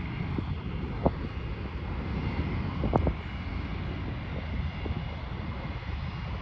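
Jet airliner engines running steadily on approach: a low rumble with a faint high whine. Two brief knocks, about a second in and at three seconds.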